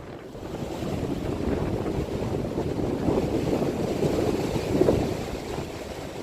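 Gusty wind buffeting the camera's microphone, a rumbling rush that swells and eases, loudest a little under five seconds in.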